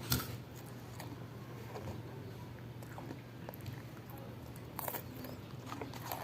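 Close-up eating sounds: a person chewing and biting, with sharp clicks right at the start and again about five seconds in, over a steady low hum.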